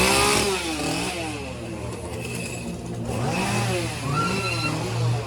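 A small engine revving up and down in repeated surges over a steady low hum, after a loud blast at the start.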